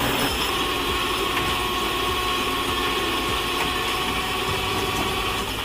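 Heavy crane tow truck's engine running steadily while it hauls an overturned dump truck upright, with a thin steady whine above the engine noise.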